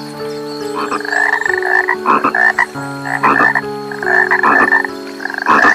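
Frogs croaking: a series of loud, pulsed croaks repeating about twice a second, over steady held lower tones that shift in pitch every second or so.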